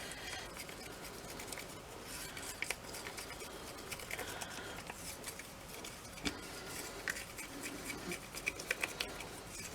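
Faint scraping, rubbing and light clicking as white and black gesso are stirred together on a mat to mix a light grey paint.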